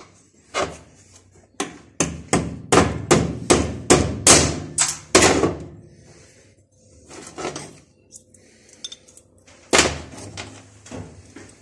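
A hammer striking a steel gear-shift lever shaft and its fittings on a steel workbench. It gives one knock, then a quick run of about a dozen ringing blows, about three a second, then a few lighter knocks near the end.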